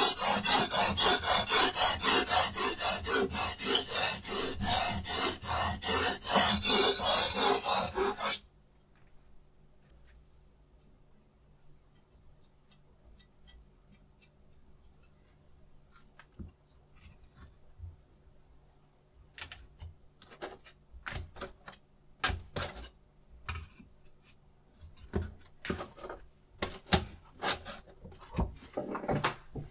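Diamond whetstone on a Hapstone T1 guided sharpener rasping along a steel knife blade in quick, regular strokes, stopping suddenly about eight seconds in. Later come scattered light clicks and knocks as the knife and stones are handled.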